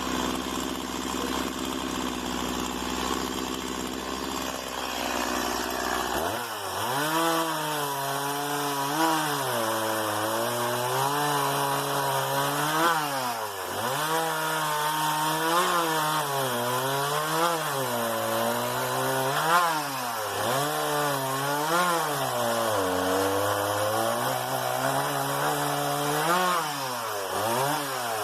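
Stihl MS 170 two-stroke chainsaw running, then throttled up about six seconds in and cutting wood. Its engine pitch repeatedly dips and recovers as the chain bites and the engine loads, then drops right at the end as the throttle is released.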